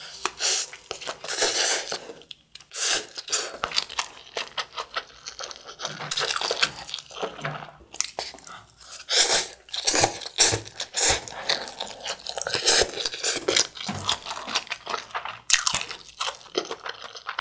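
Slurping and chewing of Buldak spicy stir-fried instant noodles: wet, irregular mouth noises in quick bursts with brief pauses.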